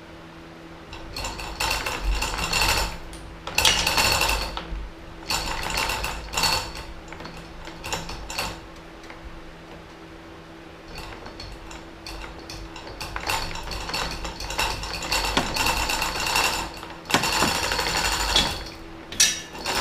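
Chain hoist rattling and clicking in several bursts of a few seconds each as the snowmobile is lowered onto the rack stands. A steady low hum runs underneath.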